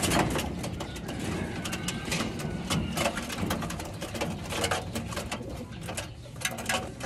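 Domestic pigeons cooing in the loft, with many short clicks and knocks scattered throughout.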